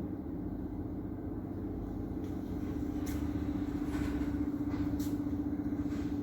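Steady low background rumble with a steady hum that grows louder about two and a half seconds in, and two faint clicks about three and five seconds in.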